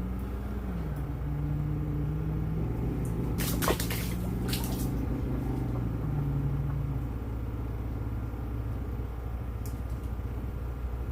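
A steady low mechanical hum whose pitch shifts a few times, with a short burst of clicks and rattling about 3.5 to 5 seconds in.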